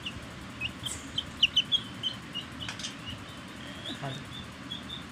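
Baby chicks peeping: a steady stream of short, high cheeps, with a few louder ones about a second and a half in.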